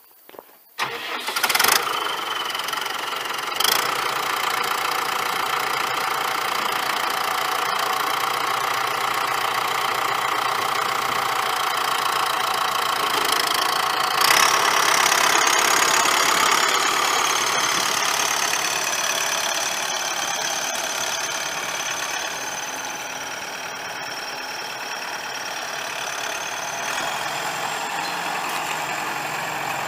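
The New Holland TS100's 5.0L four-cylinder turbo diesel starting about a second in, then running steadily. A steady high whine comes in about halfway through and holds to the end.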